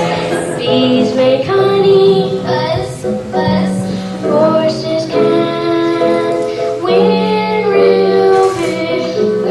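Group of children singing a song with music, in a stage musical.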